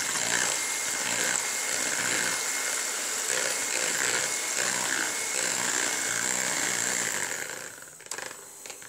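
Siemens electric hand mixer running steadily, its twin beaters whisking raw eggs in a bowl, with a thin high motor whine over the whirr. The sound falls away sharply shortly before the end.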